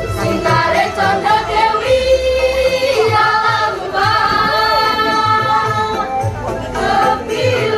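Girls' choir singing together, with long held notes through the middle.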